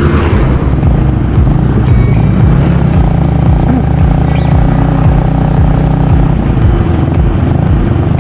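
Motorcycle engine running at road speed while being ridden, heard from the rider's seat as a loud, dense rumble. A steady engine hum sits over it and fades about six seconds in.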